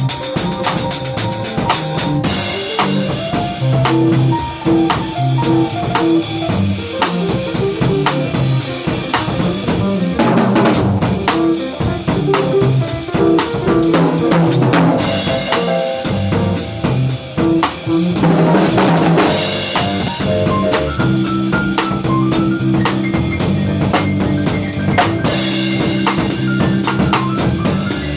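Live funk jam: a drum kit plays a syncopated groove with rimshots and bass drum under a moving bass line, with cymbal crashes several times.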